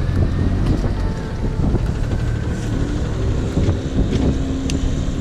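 Boat engine running steadily with a low rumble, and wind buffeting the microphone.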